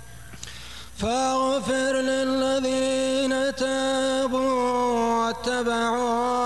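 A man reciting the Quran in melodic tajwid style. After a short pause, a long drawn-out phrase begins about a second in, with held notes that waver gently in pitch.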